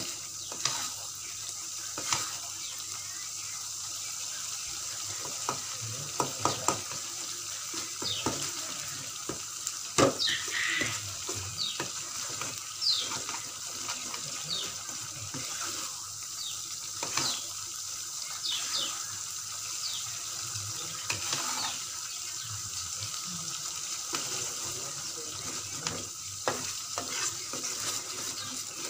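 Blended chili paste (sambal) sizzling as it fries in an aluminium wok, while a metal spoon stirs it, with scattered clicks and scrapes of the spoon against the pan, the sharpest about ten seconds in.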